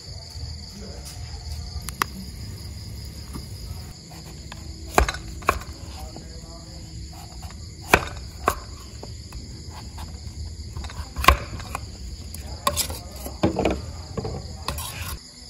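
A cleaver chops through a peeled vegetable onto a wooden cutting board, making a string of sharp, irregular knocks from about four seconds in. Crickets chirp steadily throughout.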